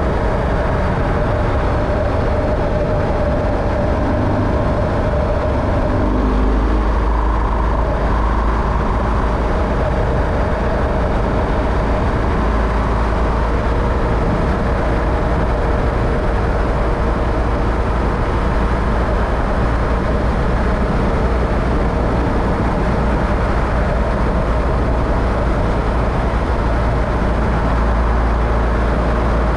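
Motor vehicle driving steadily, a continuous low engine and road rumble. The low rumble shifts in character about six seconds in, then carries on evenly.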